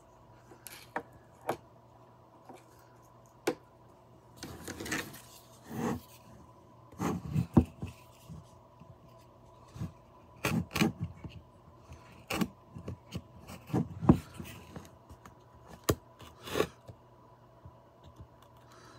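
A metal blade slicing and scraping through the paper seal stickers on a wooden cigar box, in short irregular strokes. Light clicks and knocks come from handling the box.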